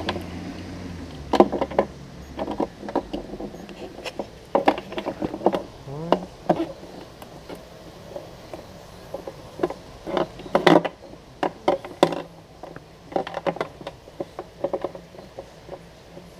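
Irregular plastic clicks, knocks and rattles of a car taillight housing and its bulb sockets being handled and fitted by hand.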